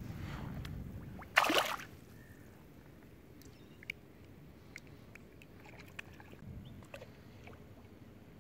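Water sloshing around a hand holding a fish at the surface, then a single short, loud splash about a second and a half in as the fish is let go. Afterwards faint lapping of water with a few small ticks.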